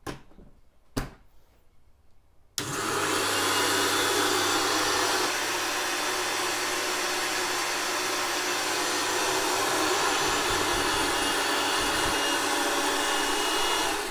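Electric kitchen mixer grinder grinding spices. It switches on abruptly about two and a half seconds in, runs steadily at full speed, and cuts off just before the end.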